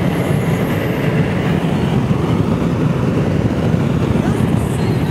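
Steady road and engine noise of a car driving at highway speed, heard from inside the cabin as a constant low rumble.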